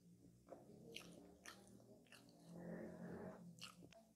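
Close-miked chewing of coconut tart, with small sharp mouth clicks scattered through it; the chewing is densest and loudest about two and a half to three seconds in.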